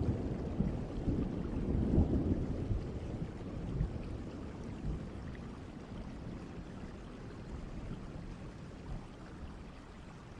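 Thunder rumbling and fading away over steady rain, leaving the rain alone.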